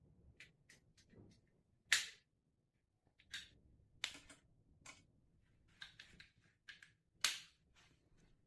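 Irregular sharp clicks and knocks, about a dozen, the loudest about two seconds in and near the end: tools and metal parts being handled while a front-loading washing machine is taken apart.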